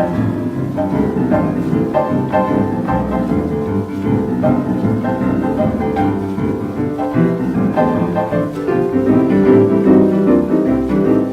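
Boogie-woogie piano playing the instrumental close of a 1941 blues record transferred from a 78 rpm disc.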